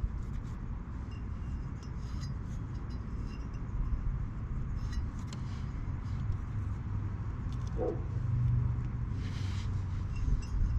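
Scattered light metallic clinks of motorcycle clutch parts being handled, over a steady low rumble.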